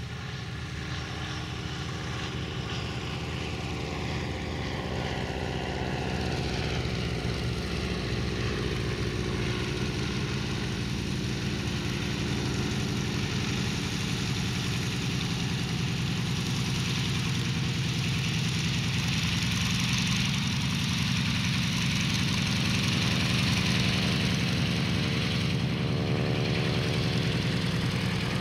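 Fleet Model 7 biplane's piston engine and propeller droning steadily as it flies overhead, growing louder over the first few seconds as it comes closer, then holding level.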